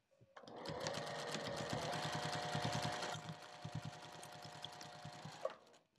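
Sewing machine stitching a seam, the needle running in a rapid even rhythm. It runs at a steady speed, goes noticeably quieter about halfway through, and stops shortly before the end.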